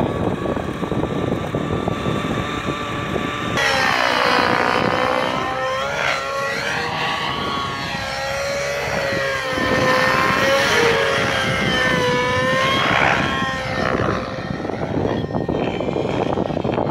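Radio-controlled helicopter's motor and main rotor running in flight, a pitched whine with several overtones. From about four seconds in it sweeps up and down again and again as the helicopter climbs, turns and performs stunts.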